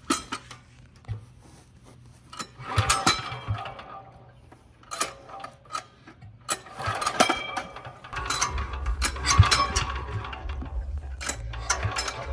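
Recoil pull-starter on a 418cc single-cylinder diesel engine (186FA) yanked several times, with clicks and rattling at each pull as the engine turns over without starting. A low rumble joins from about two-thirds of the way in.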